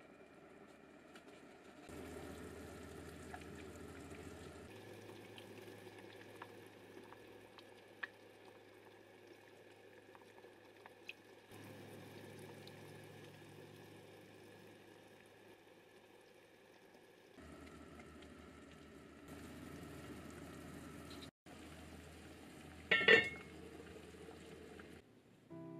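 Pot of oden broth simmering: a low, steady bubbling hiss with a few faint clicks. About three seconds before the end comes one loud clank as the cast-iron lid goes onto the pot.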